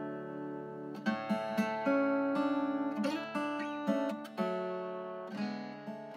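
Background music: acoustic guitar, picked notes with a few strummed chords.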